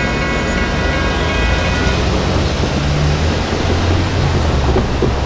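Railroad crossing warning bell ringing as the gates rise, cutting off about two seconds in. Under it, road traffic: a car and a small shuttle bus drive over the crossing, one engine rising briefly in pitch as it pulls away.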